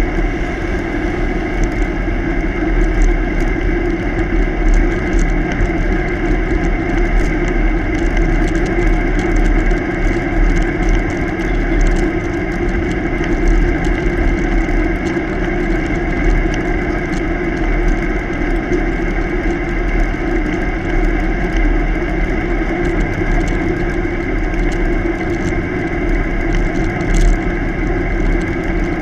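Steady wind rush and road rumble from a bicycle rolling along a paved highway shoulder, picked up by a camera mounted low on the bike, with a constant low hum under it.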